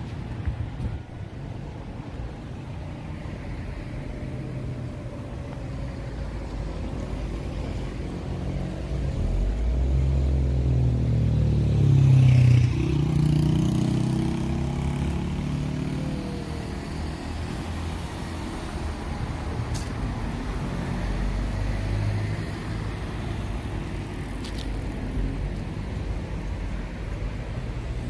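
City street traffic running steadily, with one motor vehicle passing close about halfway through, its engine swelling to the loudest point and then falling away in pitch.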